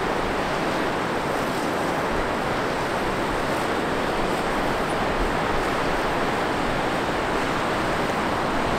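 Grand Falls on the Little Colorado River running with muddy, chocolate-brown water: a steady, even rush of water pouring over the rock ledges into the canyon.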